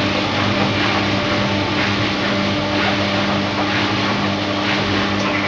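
Washing machine running: a steady motor hum and whir with a few constant tones.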